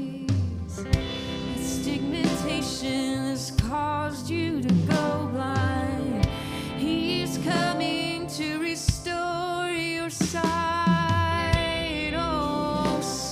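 Slow live worship music: a sung melody with held, wavering notes over sustained instrumental chords, with a soft regular beat about every two and a half seconds.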